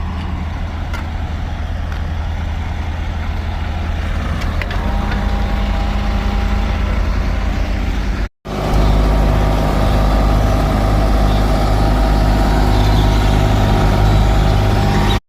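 Heavy machinery engine running steadily at a constant speed, heard in two stretches split by a sudden cut about eight seconds in, louder and deeper in the second stretch.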